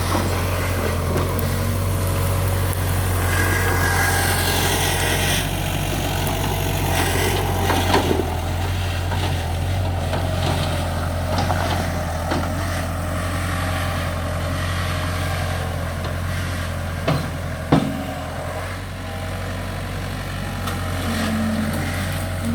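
Case 1845C skid steer's four-cylinder diesel engine running steadily under working load, with a higher whine for a couple of seconds early on and a few sharp knocks and clanks, twice near the end.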